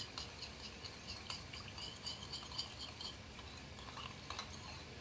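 A utensil stirring a thin sauce in a small glass bowl, ticking lightly against the glass about four or five times a second, mixing to dissolve the sugar. The ticking thins out after about three seconds.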